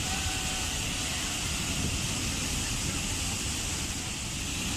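Waterfall: water falling onto rock and pool in a steady, even rush with a low rumble underneath.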